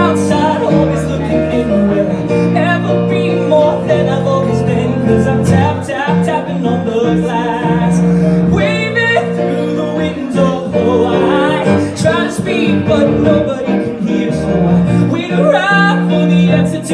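A man singing into a microphone, accompanied by a grand piano, amplified through the room's speakers.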